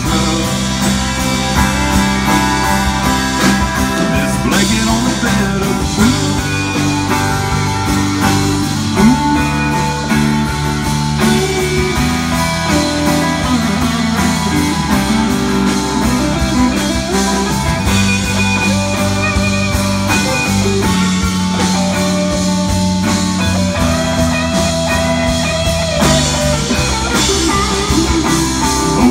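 Live band playing a country-rock song: acoustic and electric guitars over bass and drum kit.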